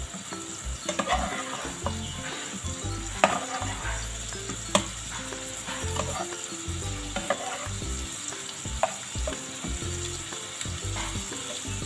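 Marinated chicken pieces sizzling in a nonstick frying pan on a low flame as they are turned over with a spatula. The spatula scrapes through the pan, with a few sharp taps against it.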